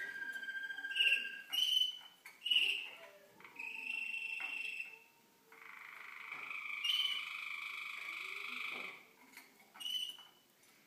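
Young Waterslager (Malinois) canaries singing: a run of short trilled phrases separated by brief pauses, with one longer, lower roll from about five to nine seconds in.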